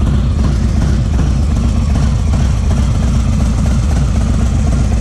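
2020 Harley-Davidson Low Rider S's Milwaukee-Eight 114 V-twin idling steadily through a Red Thunder 2-into-1 exhaust.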